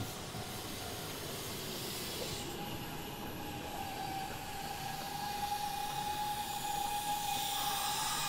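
Electric commuter train running at the station platform, its noise growing louder toward the end, with a steady high tone held from about two seconds in.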